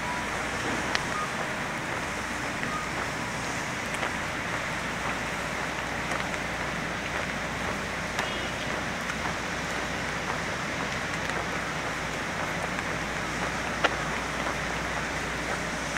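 Steady rain falling, a constant hiss with a few scattered drip taps, one louder near the end.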